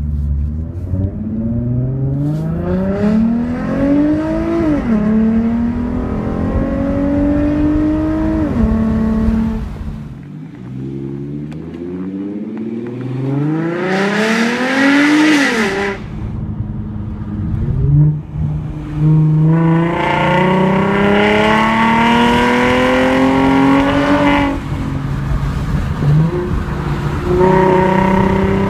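2015 Ford Mustang's 3.7-litre V6 through a Roush axle-back exhaust and X-pipe, heard from inside the cabin as the car accelerates. The engine note climbs steadily, drops sharply at each upshift, and climbs again, over several pulls through the gears.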